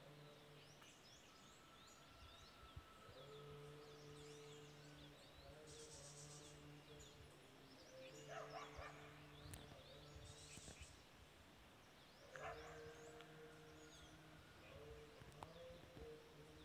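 Faint dawn chorus of many small birds chirping over low Buddhist chanting, held in long notes with short breaks between them. A couple of louder animal calls cut in about halfway through and again a few seconds later.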